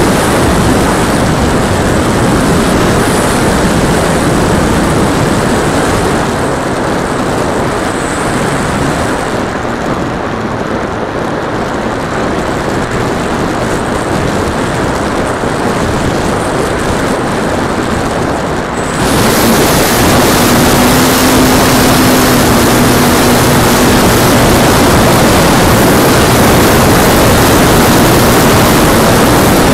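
Rushing wind and propeller noise from an RC plane in flight, picked up by the plane's onboard camera microphone. A loud steady rush that dulls for a while, then turns abruptly louder and brighter about nineteen seconds in.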